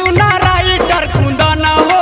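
Bhojpuri song playing: a steady drum and bass beat under a bright, pitched melody line.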